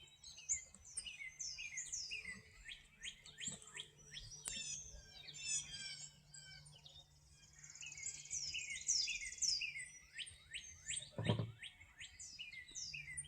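Wild songbirds chirping and singing, many short falling notes overlapping, with a quick buzzy trill around the middle. A soft low thump about 11 seconds in.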